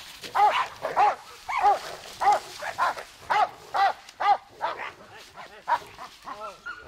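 A dog barking repeatedly, about two barks a second, the barks growing fainter in the last couple of seconds.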